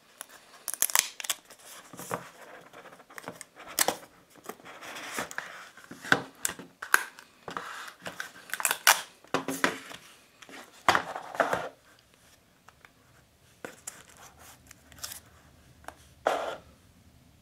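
Cardboard and plastic of a smartphone box being handled and opened: irregular rustling, tearing and scraping, busiest for the first dozen seconds, then quieter with one last rustle near the end.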